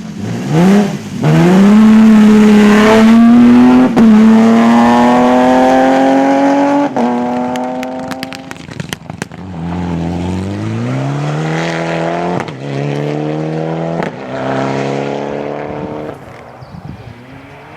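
Rally car accelerating hard past, its engine pitch rising through the gears with a sharp drop at each shift. On lift-off comes a rapid string of sharp exhaust pops, then the engine revs up through two more gears, quieter as the car moves away.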